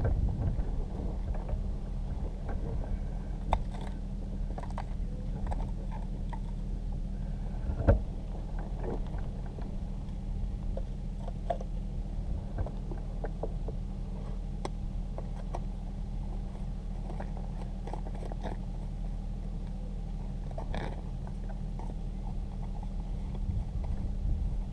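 Steady low mechanical hum, as from a small fan or motor running close to the microphone, with scattered clicks and scrapes of handling and a sharp knock about 8 seconds in.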